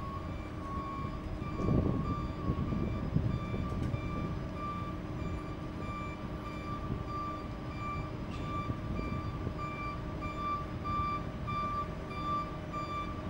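Electronic warning beeper sounding a steady series of high beeps, about two a second, like a reversing alarm, over the low rumble of a tram creeping past on its track.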